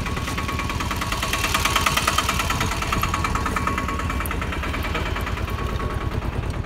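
Auto-rickshaw engine running steadily, heard from on board the vehicle, with a fast, even rhythmic pulsing and a faint thin whine above it.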